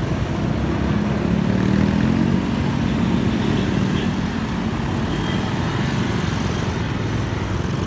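Motorcycle engine running in slow city traffic, with the engines of the surrounding bus and motorbikes mixed in; the engine note swells in the first few seconds, then settles to a steady hum.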